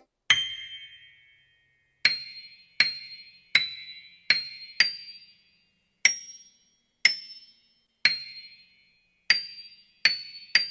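Glass bottles struck one at a time, each giving a short bright ringing clink at a different high pitch, about a dozen strikes at uneven intervals with silence between them.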